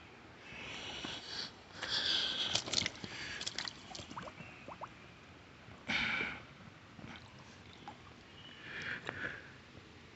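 A person sniffing and breathing out in several short breathy puffs, with faint handling clicks and scrapes in between.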